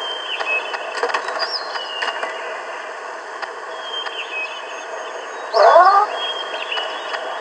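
Nature ambience from the app's soundtrack: short bird chirps repeating every second or two over a steady hiss. About five and a half seconds in there is a single louder, rising call, the loudest sound.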